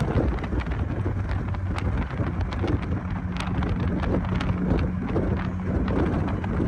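Taxi ride heard from inside the car: a steady low engine and road rumble with a held hum, and frequent small rattles and knocks as the car goes over a rough surface.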